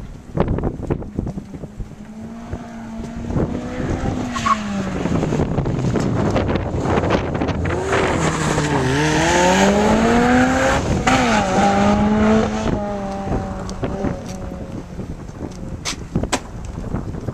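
Sports car engine driven hard through a cone course, its pitch rising and falling several times as the driver accelerates and lifts. It is loudest about halfway through as the car passes closest. Wind buffets the microphone.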